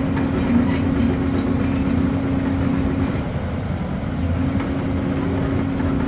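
Volvo EC210 excavator's diesel engine running with a steady low hum that fades briefly about three seconds in.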